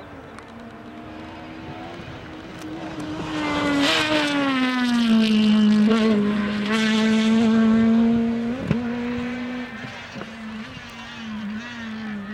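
Rally car engine driven hard, growing loud over a few seconds, its pitch dropping as it goes by. A single sharp crack comes about two-thirds of the way through, then the engine carries on quieter.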